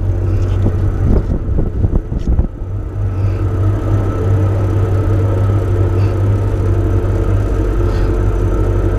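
Boat motor running steadily under way, a continuous low rumble with a steady hum above it. The first three seconds or so sound uneven and choppy before the running settles.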